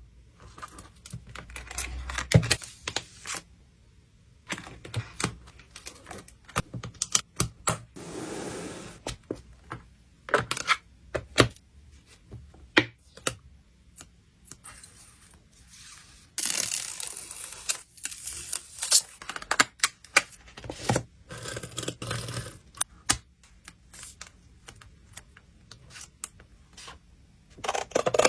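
Photocards being hand-packed: irregular small taps and clicks of cards and plastic sleeves set down and handled, with short spells of crinkling and rustling packaging, the longest a little past halfway.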